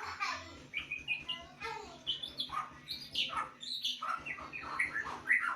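Caged songbird singing a fast, varied string of short chirps and whistled notes, many of them sliding up or down in pitch.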